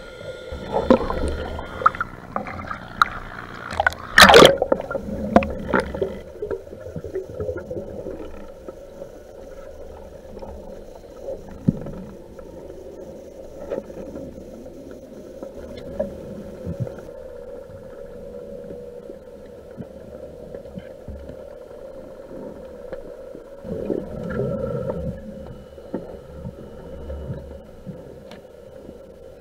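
Underwater sound of a freediver swimming with a speargun: bubbling and knocks in the first few seconds, the loudest a sharp knock about four seconds in. After that a quieter steady underwater hum with scattered faint clicks.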